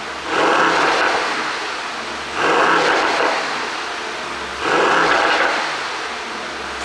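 Mercedes-AMG GT63 S twin-turbo V8 exhaust being blipped, three sharp revs about two seconds apart, each falling back to idle. The ECU is tuned for exhaust pops and crackles on the overrun.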